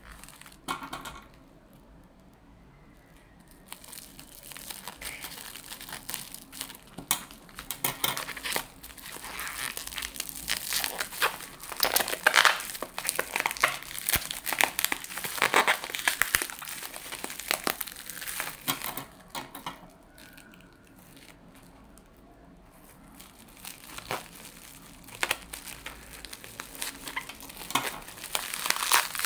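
Clear plastic bubble wrap crinkling and rustling as hands handle and unwrap it, in irregular crackly bursts, with a quieter lull about two-thirds of the way through.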